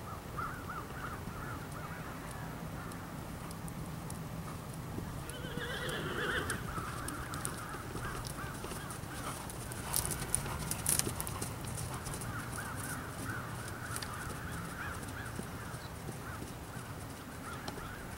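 Horse trotting on arena sand footing, its hoofbeats soft and rhythmic. A short call sounds about six seconds in, and a few sharp clicks come near the middle.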